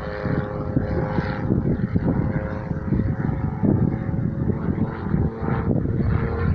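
Light propeller aircraft's piston engine and propeller running at a steady speed.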